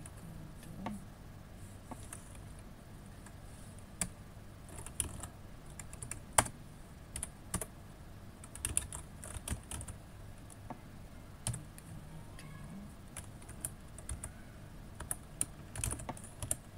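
Typing on a computer keyboard: irregular keystrokes in short runs with pauses between, as code is deleted and retyped. One keystroke about six seconds in is sharper than the rest.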